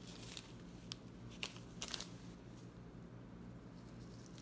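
Faint rustling with a few light crinkles and ticks from synthetic flashabou strands being handled and tied in at a fly-tying vise, over a low steady hum.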